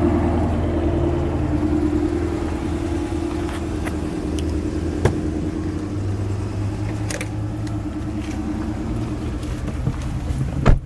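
2014 Dodge Charger SRT8's 6.4-litre HEMI V8 running steadily at low revs through a Corsa aftermarket exhaust, a low, even engine note. There is a sharp click near the end.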